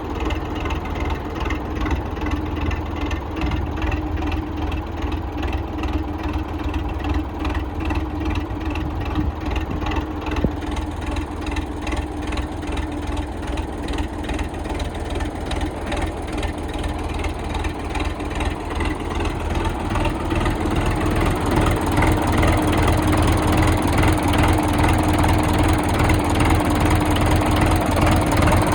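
YuMZ-6 tractor's diesel engine running steadily at idle after a cylinder head rebuild with new valves and recut valve seats. About twenty seconds in it gets somewhat louder.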